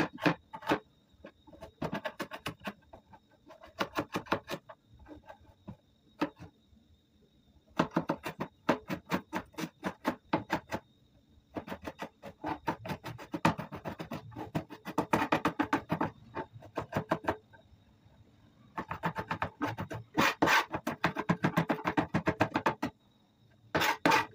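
Kitchen knife chopping vegetables on a cutting board: rapid runs of sharp knocks, several a second, broken by short pauses.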